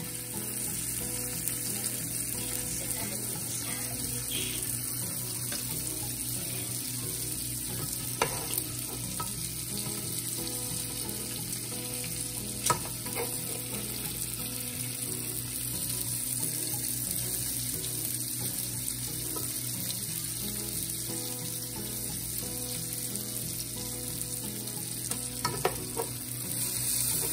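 Sliced ribeye steak, mushrooms and onions frying in a pan under melting provolone, a steady sizzle. A few sharp clicks of a spatula against the pan come about a third of the way in, near the middle and near the end.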